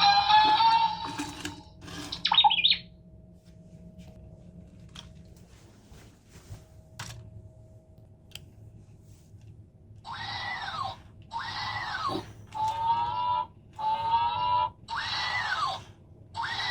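Electronic sounds from a remote-control singing robot toy: a tune cuts off about a second in, a short squealing glide follows, a few faint clicks, then from about ten seconds in a run of one-second electronic calls, each rising and falling in pitch, with short gaps between them.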